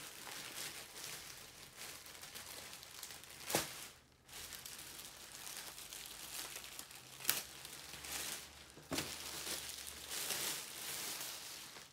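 Clear plastic packaging crinkling and rustling as it is torn open and pulled off a new backpack, with a few sharper crackles.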